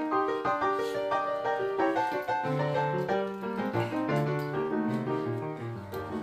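Background piano music: quick, light melody notes over a bass line that grows stronger about halfway through.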